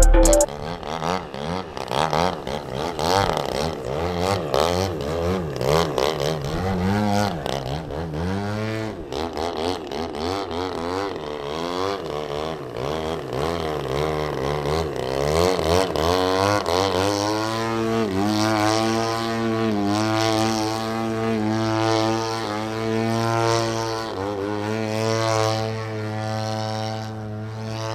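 Model airplane engine running in flight, its pitch rising and falling as the plane manoeuvres and passes, then settling into a steadier drone in the second half.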